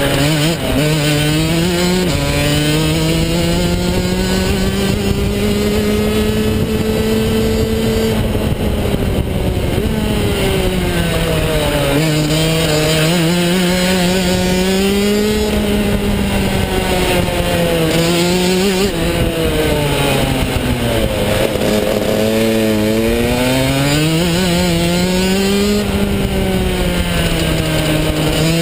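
Rotax DD2 shifter kart's 125cc two-stroke engine heard onboard, revving up and down through a lap: the pitch climbs on the straights and falls away into the corners, with a few sudden steps in pitch, over a steady hiss of wind and road noise.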